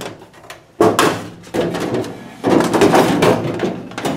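Sheet-metal outer cover of a GE Spacemaker microwave being pulled and slid off its frame: a sudden clank about a second in, then a longer scraping rattle of metal on metal in the second half.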